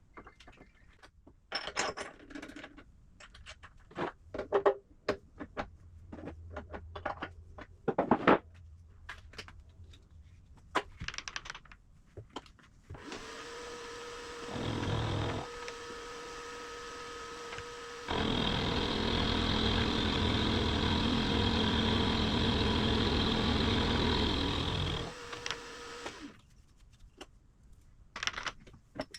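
Metal parts and tools being handled with scattered clanks and knocks, then an electric machine tool starts and runs with a steady hum, getting louder from about halfway through as it works the steel stock, and stops a few seconds before the end.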